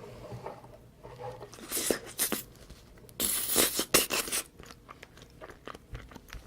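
Close-miked eating sounds: chewing and crunching, with a few short bursts about two seconds in and a louder, denser burst lasting about a second just past the middle.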